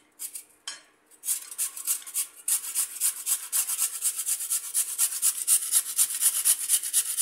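Raw potato scraped over the shredding blades of a flat metal hand grater: two short strokes, a brief pause, then quick, even rasping strokes from about a second in.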